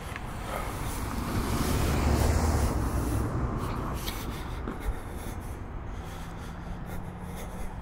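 A car passing close by: its tyre and engine noise swells to a peak about two seconds in, then fades away.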